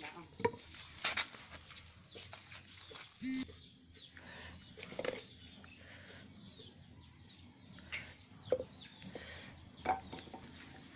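Scattered light knocks and clicks from the noodle-press cylinder and its mould being handled, over a steady high insect drone.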